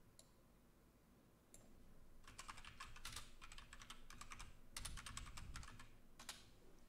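Faint computer keyboard typing: two quick runs of keystrokes, starting about two seconds in and again about five seconds in, with a few single key clicks around them.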